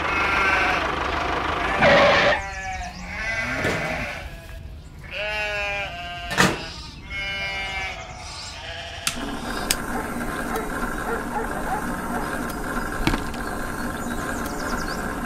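An animal bleating several times, each bleat wavering in pitch, then from about nine seconds a steady mechanical hum.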